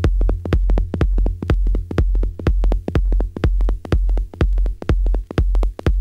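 Techno track: a steady four-on-the-floor kick drum with deep bass, about two beats a second, with short clicking percussion between the beats.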